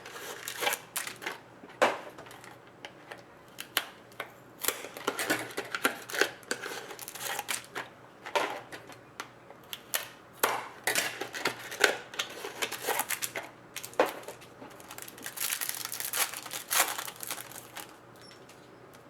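Sports card packs being opened and handled: irregular tearing, crinkling and sharp clicks of wrappers and card stock.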